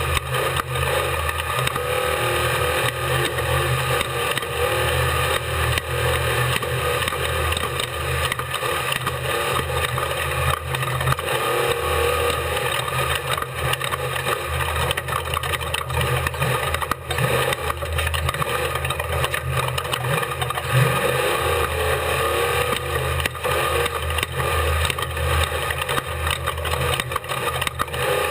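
Off-road race car's engine running hard under load, heard from onboard, with steady wind rush and frequent knocks and rattles over rough ground.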